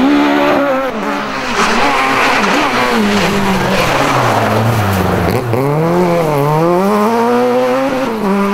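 Citroën Saxo rally car's engine driven hard, revs rising and falling with gear changes. The pitch drops to its lowest about five seconds in, then climbs again in steps as it accelerates.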